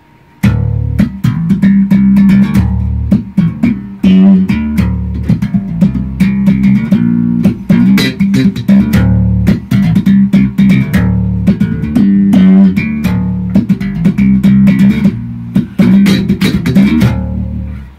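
Electric bass guitar played solo: a busy run of plucked notes with sharp, percussive attacks over deep, full low notes. It starts about half a second in and stops just before the end.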